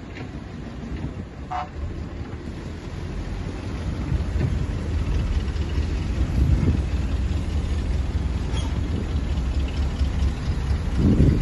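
Diesel engine of heavy earthmoving machinery running with a low rumble that grows louder from about a third of the way in, with a brief louder surge near the end.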